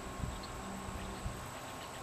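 Steady hiss and hum of a camcorder tape recording, with a thin steady whine, broken by two short low bumps about a quarter second and a second and a quarter in.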